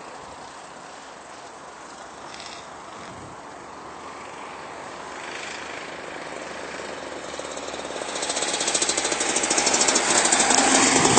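Rotax 125cc two-stroke kart engine running at speed, faint and distant at first, then growing much louder and closer over the last few seconds as the kart approaches, with a rapid, even pulsing.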